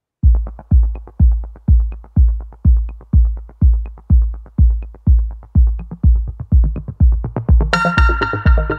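Electronic background music: a drum-machine kick drum beating steadily about twice a second, joined near the end by a synthesizer chord.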